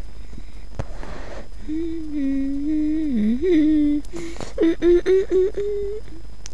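A person humming a tune with closed lips: a long held note that dips in pitch, then about five short notes near the end, with a breath between phrases.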